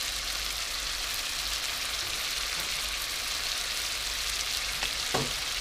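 Dried shrimp, garlic and chilli frying in oil and seasoning sauce in a hot steel wok: a steady sizzling hiss.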